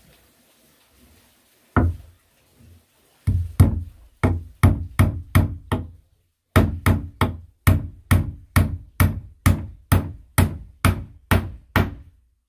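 Hammer striking wood, likely driving nails into planks. One blow comes first, then a steady run of about three blows a second with a brief pause about halfway through.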